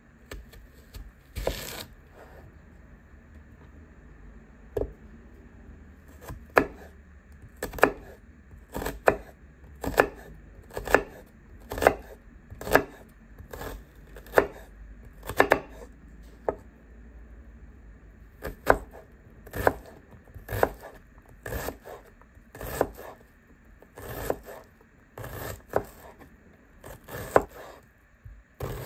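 Kitchen knife cutting through a peeled onion and knocking on a bamboo cutting board: a few spaced-out cuts at first, then about one cut a second as the onion is sliced and diced.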